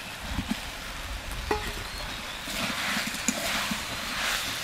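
Fried potato chunks tipped into a pan of spiced raw jackfruit, landing with a few soft thuds, then a steel spatula stirring and scraping the pan as the curry sizzles in oil, the hiss growing over the last couple of seconds.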